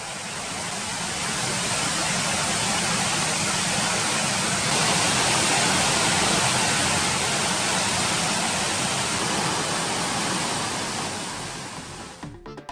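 Large waterfall pouring steadily, heavy with rain-swollen flow: a dense, even rush of falling water. It fades in over the first couple of seconds and fades out near the end.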